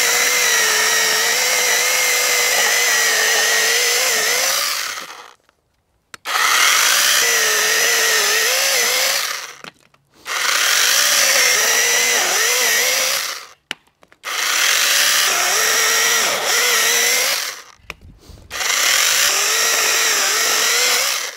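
Hychika CS18D 18V brushless mini chainsaw with an 8-inch bar cutting through a small log five times in a row. Each cut runs about three to four seconds, with the motor's whine wavering under load, and the saw stops for a moment between cuts.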